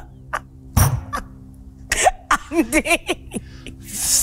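A person imitating a sound with the mouth: a few clicks, a short cough-like burst about a second in, a wavering up-and-down vocal warble around the middle, and a hiss near the end.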